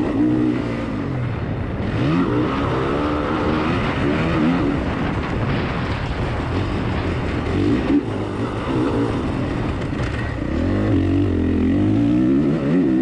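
Honda CRF450R's single-cylinder four-stroke engine heard from on board, revving up and easing off again and again as the rider accelerates, shifts and rolls off.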